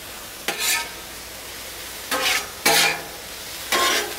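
Spatula scraping and turning chicken on a Blackstone griddle's flat steel top, four short scrapes over a steady sizzle of chicken frying in soy sauce.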